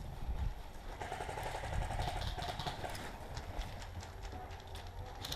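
Irregular light clicks and knocks over a low rumble, typical of a player moving across an airsoft field, with faint distant voices.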